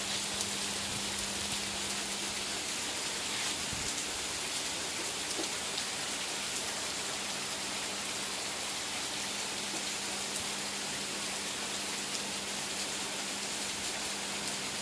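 Heavy rain falling steadily, an even hiss of downpour on surfaces. A faint steady hum runs underneath.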